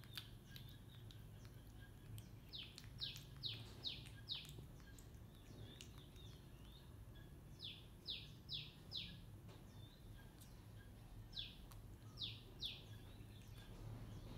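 Small birds chirping faintly in three quick runs of three to five short, high, falling chirps, over a low steady hum.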